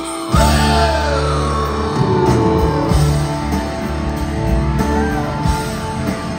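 Live rock band with electric guitar, drums, bass and keyboards. After a held chord, the full band crashes in loudly about a third of a second in, and the lead guitar plays gliding, bending notes over it.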